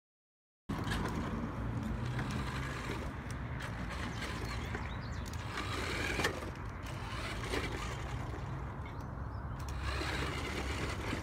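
Toy radio-controlled monster truck's electric drive motor and plastic gearbox whirring steadily as it drives across asphalt, cutting in abruptly about a second in.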